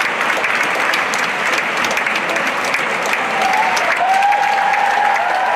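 Theatre audience applauding steadily for dancers taking their curtain-call bows, a dense crackle of many hands clapping. From about three and a half seconds in, a long held shout from the audience rises above the applause.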